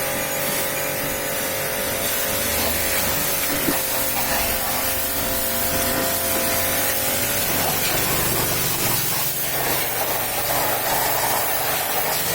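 Pressure washer spraying water in a steady hiss, with a steady machine hum in the first half.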